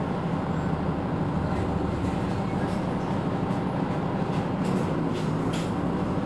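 Mercedes-Benz Citaro C2 city bus under way: a steady low engine hum mixed with rolling road noise, with a few light rattles near the end.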